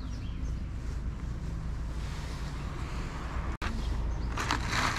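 Steady low rumble of wind on the microphone. Near the end comes a short rustling scrape of a plastic food tub being set down on stone paving.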